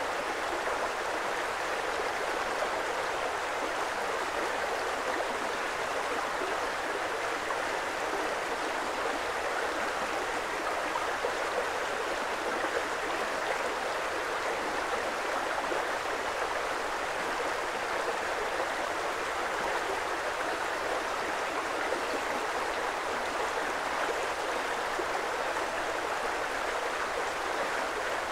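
Creek water flowing, an even, unbroken rush with no pauses or changes.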